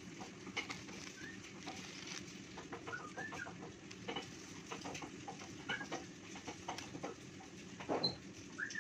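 Birds calling in the background, short clucking chirps like chickens, over a steady low hum, with a few light clicks.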